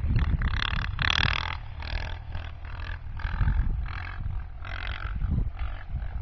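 Yamaha Raptor 700 quad's single-cylinder engine revving in repeated throttle bursts, about one or two a second, under a steady rumble of wind on the microphone.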